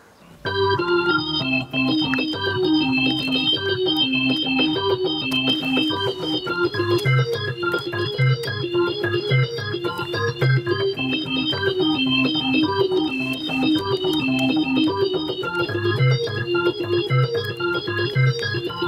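Roland Lucina keytar being played: a low bass line under repeated chords in a steady rhythm, starting about half a second in.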